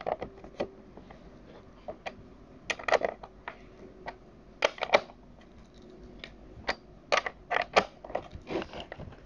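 Combination wrench tightening down the bar nuts on the side cover of a cordless chainsaw: scattered short metallic clicks and scrapes as the wrench is seated and turned, coming in small clusters every second or so.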